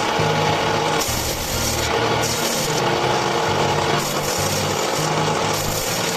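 Woodworking tool working on wood, a steady rasping and rubbing sound with a running motor tone, over background music.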